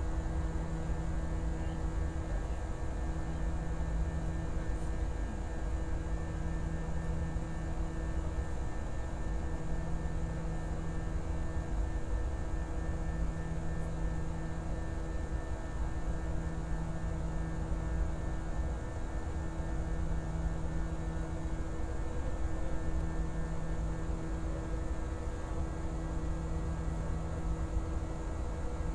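Steady cabin noise of an airliner climbing after takeoff: a low rumble of engines and airflow with a constant hum, and a lower hum tone that fades in and out every few seconds.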